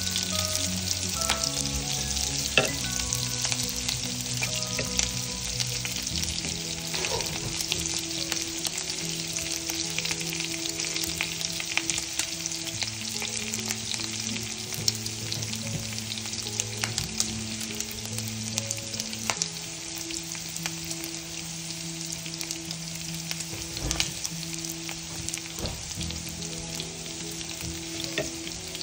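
Sausage pieces and sliced garlic sizzling in oil in a non-stick frying pan, with a steady hiss and many small pops. A wooden spoon stirs and scrapes through the pan at the start.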